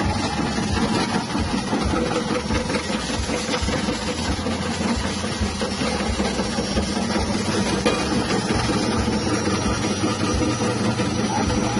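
Electric potato chip slicing machine with a 180-watt motor running steadily while its spinning blade slices potatoes pressed against it by hand.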